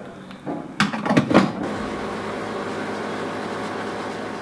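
A fuel nozzle knocks and clicks a few times against the car's filler neck, then the petrol pump runs with a steady hum as fuel is dispensed.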